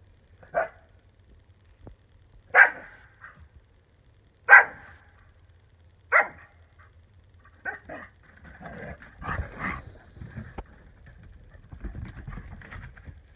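A dog barking four times in short, sharp barks about two seconds apart, followed by several seconds of softer scuffling as two dogs meet on a wooden deck.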